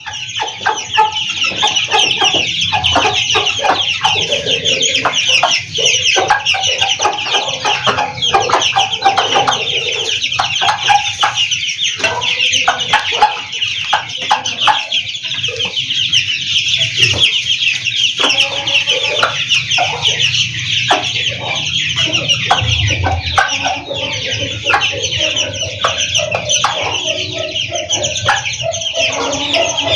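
A brood of Aseel chicks peeping constantly in a high-pitched chorus, with a hen clucking over them in short repeated calls.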